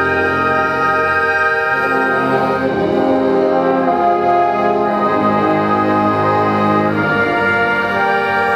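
A concert band of brass and woodwinds playing held chords, the harmony moving to a new chord every couple of seconds.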